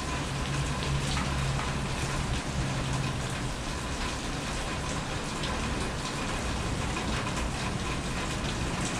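Rain falling steadily, with individual drops ticking on a surface close by.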